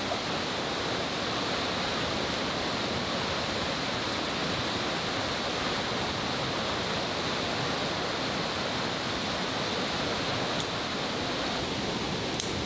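A steady outdoor rushing noise, with a few faint sharp clicks near the end.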